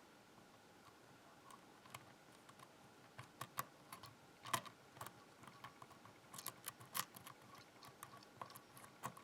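Faint, irregular clicks and scrapes of a hook pick working the pins inside a ZI IKON cylinder lock under tension, while searching for a spool pin after a false set. The clicks are sparse at first and come more often from about three seconds in.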